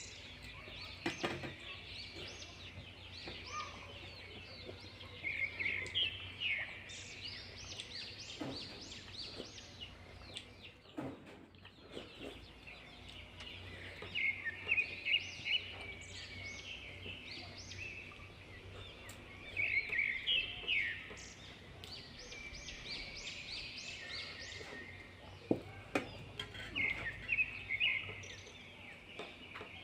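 Birds chirping in repeated clusters of quick high calls every several seconds, over a low steady background, with a few soft clicks in between.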